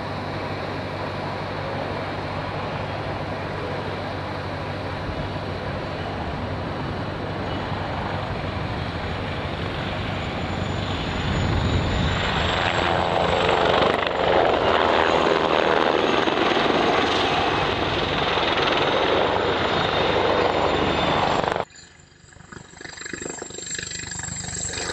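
Eurocopter Tiger attack helicopter flying low with its rotor and turbines running, growing louder about halfway through as it banks past close by. Near the end the sound cuts off suddenly to a quieter, more distant helicopter sound.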